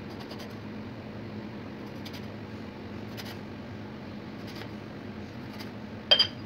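A steel tumbler pressed down through rolled dough onto a marble counter, making a few soft taps as rounds are cut, over a steady background hum. Near the end comes one loud, sharp metallic clink with a brief ring as the steel tumbler knocks against the marble.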